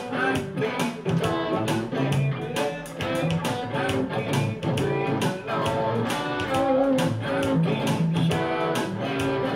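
Electric guitar playing a gospel shuffle over a steady percussive beat.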